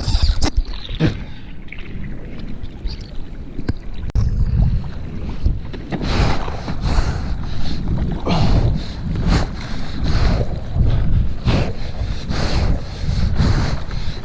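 Seawater sloshing and splashing close to the camera, with wind buffeting the microphone. About six seconds in, a steady run of splashes begins, roughly one or two a second.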